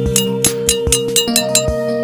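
Background music: held notes over a quick, light tapping beat.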